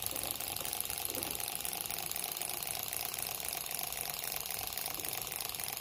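Six-cylinder Gatling-style rotary Stirling engine running on its alcohol burner, its spinning cylinder cluster giving a steady fast rattle from the little ball bearings shuttling inside the cylinders.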